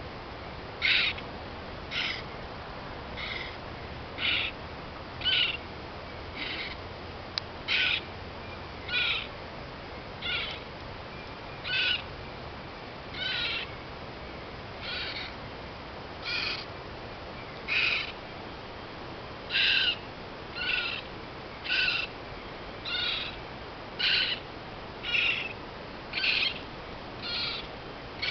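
Northern raccoon kit crying: a short, high-pitched call repeated about once a second, over and over.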